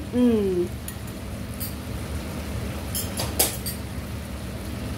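A few sharp clicks of a utensil against the wok, the loudest cluster about three seconds in, over the steady low hiss of the chicken stir fry simmering in its sauce.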